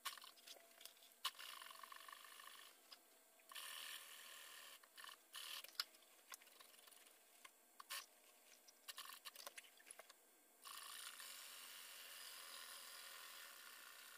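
Industrial sewing machine stitching welt onto an upholstery panel, heard faintly. It runs in short spurts that start and stop, with scattered light clicks, then runs steadily over the last few seconds.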